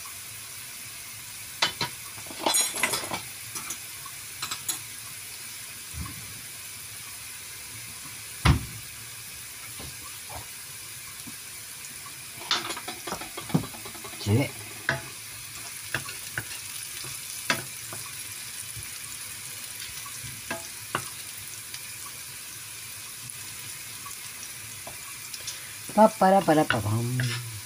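Diced green pepper and garlic sizzling steadily in hot oil in a frying pan, with scattered clicks and one louder knock about eight seconds in. Near the end a wooden spoon stirs them around the pan.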